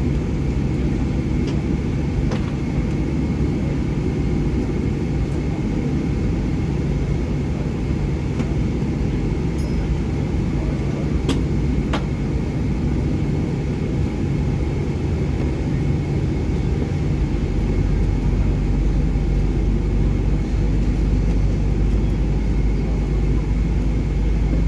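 Cabin noise inside a Boeing 757 on the ground: a steady low rumble with a thin high whine, two faint clicks near the middle, and the deep rumble growing stronger in the last third.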